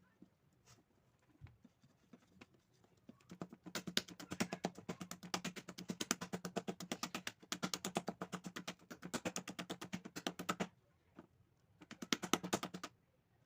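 Cake batter being beaten by hand in a bowl: fast, even clicking strokes of the whisk against the bowl. A long run of about seven seconds, a short pause, then a brief second run.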